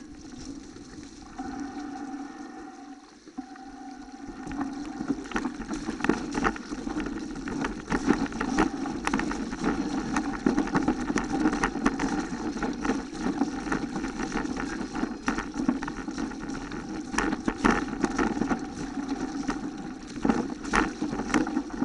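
A mountain bike rolling downhill on a wet, muddy dirt track with water running along the ruts: steady tyre rush through mud and water, with frequent knocks and rattles as the bike jolts over rough ground. It gets louder after about four seconds as speed picks up.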